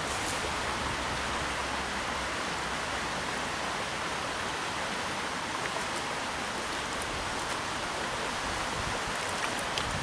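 Steady rush of a rocky trout stream, its current running over rocks.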